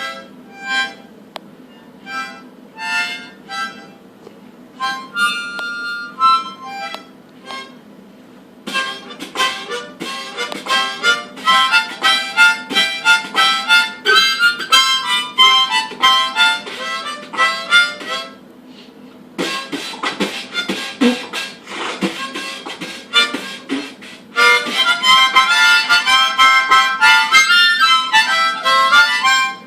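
Harmonica played while beatboxing. It opens with a few separate notes, then from about nine seconds becomes a fast, rhythmic run of notes over percussive mouth beats. Around twenty seconds it is mostly beatbox percussion with few notes, then notes and beats return louder near the end.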